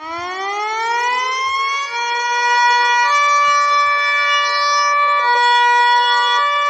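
Siren wail used as the siren cat's voice. It winds up in pitch over about two seconds, then holds a loud, steady multi-tone note that shifts pitch slightly a few times.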